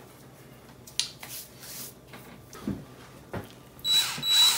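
Cordless drill fitted with a mixer beater, run in two short bursts in a bowl of batter near the end, giving a steady high whine; before that, a few soft clicks and rustles of handling.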